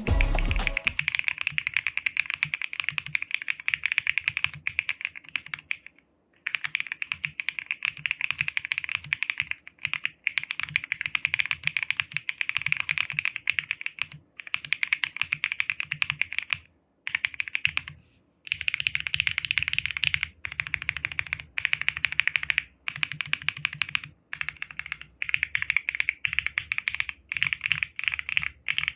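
Typing on a Womier Era75 mechanical keyboard, a CNC-aluminum, gasket-mounted board with a PC plate and factory-lubed POM Ash linear switches. Fast runs of keystrokes come in bursts of a few seconds, broken by short pauses.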